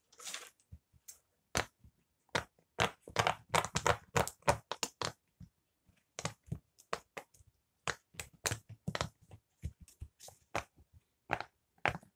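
Silicone pop-it fidget toys having their bubbles pressed through, popping in quick, irregular runs of soft clicks, with a short pause about halfway through.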